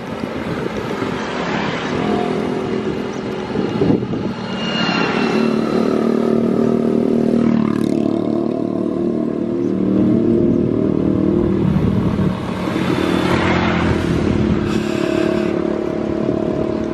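Small motorcycle engines running and passing on the road, heard over clattering picked up through a camera mounted on a moving bicycle's handlebars.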